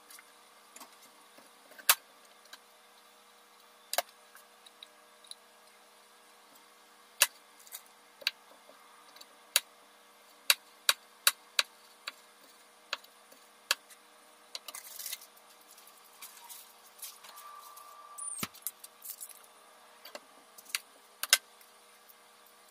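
Kitchen knife chopping bell peppers on a plastic cutting board: sharp knocks of the blade striking the board, a dozen or more at uneven intervals, with a couple of short stretches of scraping and handling between them.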